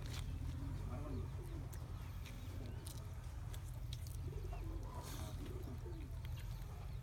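A dove cooing in phrases of low, wavering notes, one about a second in and another about five seconds in, over a steady low rumble.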